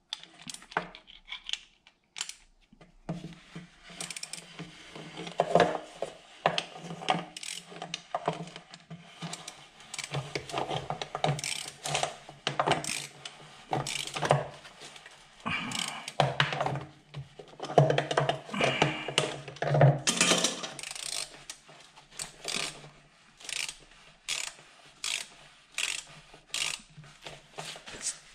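Ratchet wrench clicking in short, irregular runs as a torch-heated 1-inch pipe plug is turned into a plastic intake manifold. The plug is too hot: it melts the plastic and spins instead of cutting threads. A low steady hum sits underneath for much of the time.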